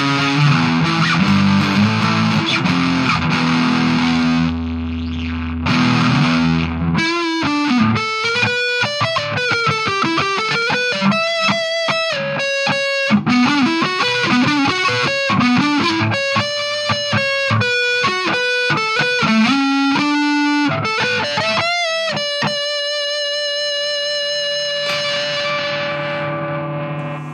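Electric guitar through distortion: the Chinese Gibson Flying-V replica with Ibanez QM1/QM2 humbuckers. It plays dense distorted chords for about seven seconds, then a fast single-note lead line with notes that glide in pitch, and ends on a long sustained note that slowly fades.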